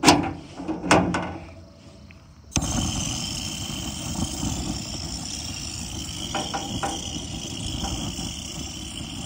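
Two sharp metal knocks from the sheet-metal front flap of a charcoal grill being opened. About two and a half seconds in, a butane jet torch lighter fires and its flame hisses steadily, with a high whistling tone, as it is held to the charcoal to light it.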